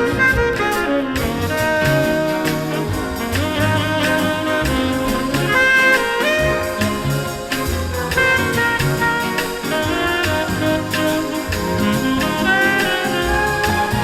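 Instrumental break of a 1964 bossa nova pop record played from a 45 rpm single: the band plays melody lines over the bossa nova beat, with no singing.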